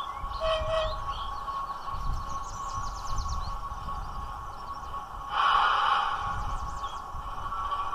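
DCC sound of a Class 08 diesel shunter idling, played through the small speaker of a stationary OO gauge model, a steady hum. A short louder hiss comes a little past five seconds in.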